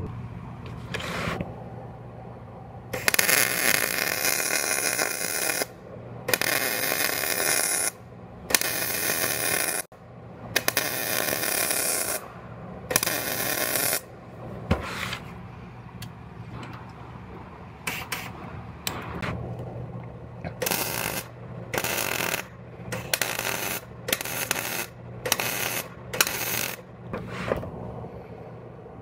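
MIG welder arc crackling in a run of separate welds, each one to three seconds long and stopping and starting. The welds are joining in a replacement car frame rail section. Toward the end the welds shorten to quick bursts of about one a second, and a steady low hum runs underneath.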